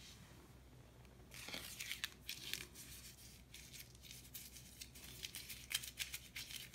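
Paper receipt being crumpled: irregular crinkling and crackling that starts about a second in.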